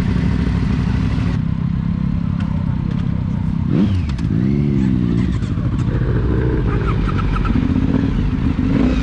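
Motorcycle engines running at low speed, led by the Aprilia Dorsoduro 750's V-twin as the group rolls off slowly. About four seconds in there is a brief rise and fall in engine pitch.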